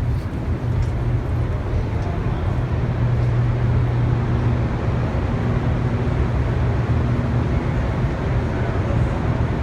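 Steady low rumble with a constant low hum inside the Hoover Dam's tunnels, the kind of drone given off by the dam's water passages and power machinery; a fainter higher hum joins about four seconds in and fades near the end.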